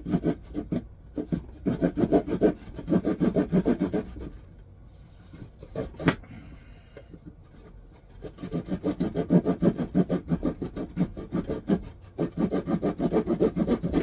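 Small hand saw cutting a notch into a wooden stick in fast, short back-and-forth strokes, trimming the 45-degree cut of a pail notch. The strokes stop for about four seconds in the middle, with one sharp knock, then start again.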